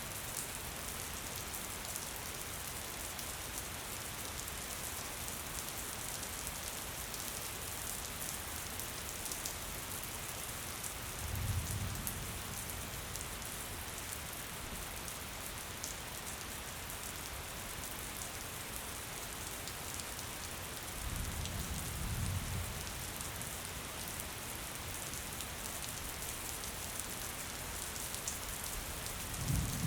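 Steady gentle rain falling, a continuous hiss with a fine patter of individual drops. A brief low rumble swells up three times: about a third of the way in, about two-thirds in, and at the very end.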